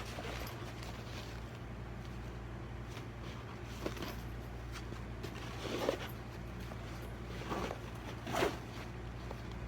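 A few short scrapes and clicks of objects being handled, the strongest about six and eight and a half seconds in, over a steady low hum.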